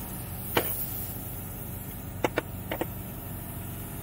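Five sharp clicks or knocks, one about half a second in and then two quick pairs near the middle, over a steady low hum.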